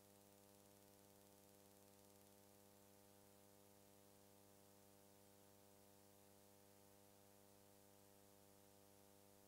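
Near silence: a faint, steady electrical hum with hiss and no other sound.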